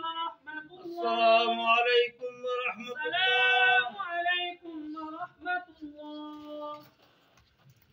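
A voice chanting a prayer in long, drawn-out melodic phrases, stopping about seven seconds in.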